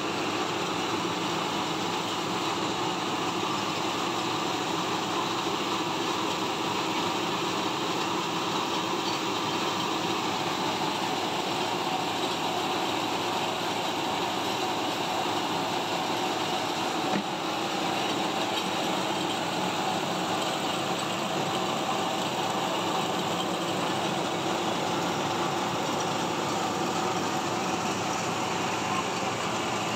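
Belt-driven rice mill, powered by an electric motor, running steadily as it hulls and cleans rice, separating the chaff from the grain.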